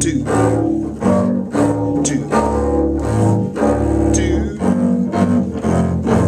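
String orchestra playing, with double basses and cellos carrying a rhythmic, accented low line of short repeated notes. A man counts beats briefly at the start.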